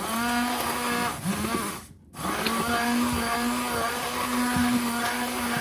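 Tefal immersion blender's motor running in a glass bowl of thick flour batter. It is switched off about a second in, runs again briefly, stops just before two seconds, then starts again and runs steadily, with a few knocks in the middle.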